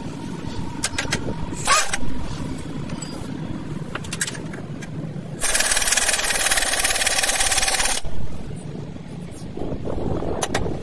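Pneumatic impact wrench hammering a control arm mounting bolt tight into the subframe, one burst of about two and a half seconds starting about five and a half seconds in and cutting off sharply. A few short knocks come before it.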